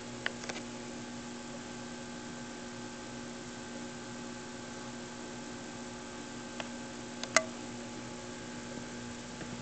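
Aquarium air pump humming steadily under a soft hiss, with a few sharp clicks, the loudest about seven seconds in.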